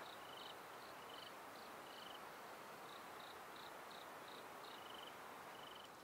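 Crickets chirping faintly: short, evenly spaced chirps about two or three a second, with a second, lower trilled chirp coming in now and then, over a steady soft hiss.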